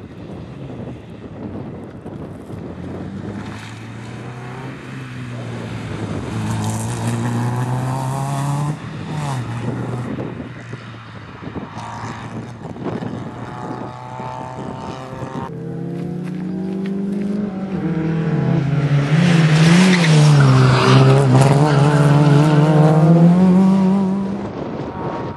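Rally car engine under hard acceleration, pitch climbing through the revs and dropping at two gear changes. On a long final pull it gets loudest and wavers, then the throttle comes off near the end.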